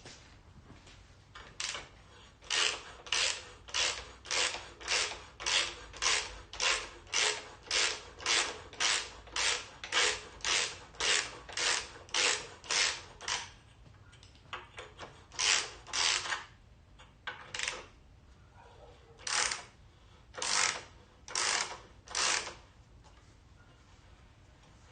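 Hand socket ratchet clicking in quick, even back-and-forth strokes, about two and a half a second, winding out bolts that are turning freely. After a short pause come a few slower, more spaced strokes.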